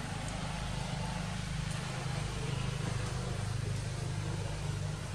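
An engine running steadily, a low hum with a faint hiss over it.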